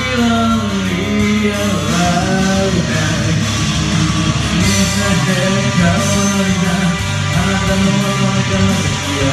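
Karaoke: a man's voice singing through a microphone over a loud heavy rock backing track with electric guitar.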